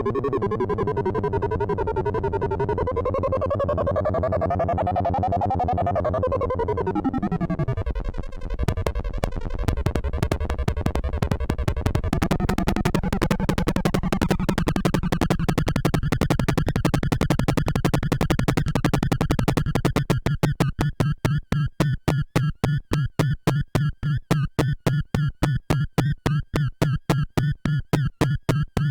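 Behringer Crave analog synthesizer playing a sustained, buzzy tone whose brightness rises and then sweeps down and out about a quarter of the way in. It then turns into fast repeating pulses, and in the last third it plays short staccato notes at about four a second.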